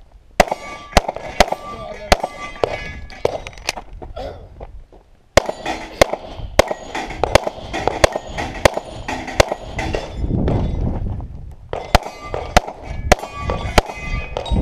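Semi-automatic pistol firing rapid strings of shots at steel plate targets, the hits followed by the ringing of struck steel. Three strings of fire, with short pauses about four seconds in and around ten seconds in.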